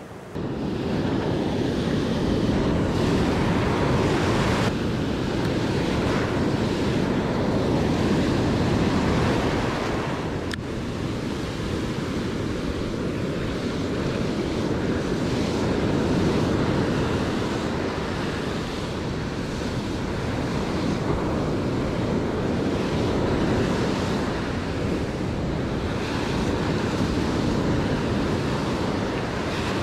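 Ocean surf breaking and washing in around the shallows, with wind buffeting the microphone. The wash swells and eases gently.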